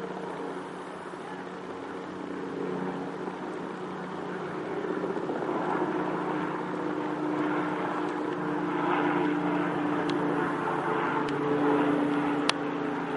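Small two-bladed helicopter flying overhead: a steady drone of engine and rotor that grows louder as it comes closer. A single sharp click sounds near the end.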